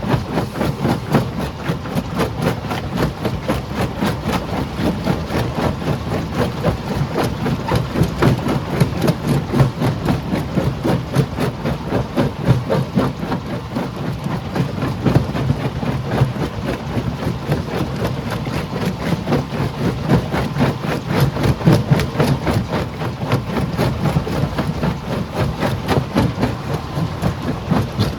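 Stone crusher machine running, with a rapid, continuous clatter of rock being broken over a steady heavy engine drone.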